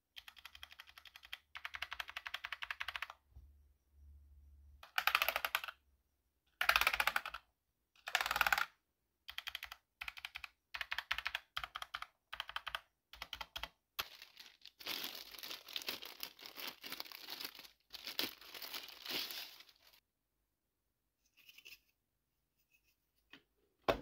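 Philco PKB92 mechanical gaming keyboard with Outemu brown switches being pressed: bursts of rapid keystrokes with short pauses between them, thinning to a few scattered key presses near the end.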